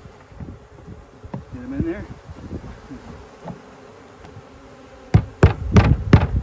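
A honeybee swarm buzzing round an open hive, one bee's buzz wavering past the microphone early on. About five seconds in, a quick series of about five sharp knocks as the container of bees is banged down on the hive box to shake the swarm out.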